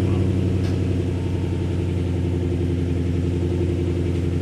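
Ford Shelby GT350's 5.2-litre flat-plane-crank V8 idling steadily through freshly installed long-tube headers and a full aftermarket exhaust. The idle is way quieter than the factory exhaust.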